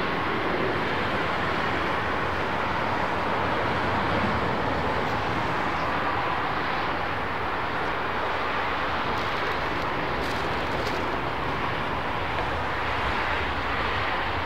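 Jet engines of a taxiing Lufthansa Airbus A320neo at low thrust, a steady, even rumbling hiss.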